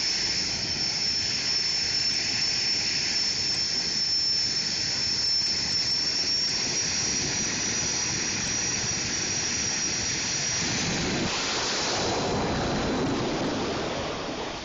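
Jet engine of a jet-powered pickup truck running with a steady high-pitched whine over a constant rush. About eleven seconds in the rush swells into a broader blast as the truck throttles up and launches down the strip, and the sound falls away near the end.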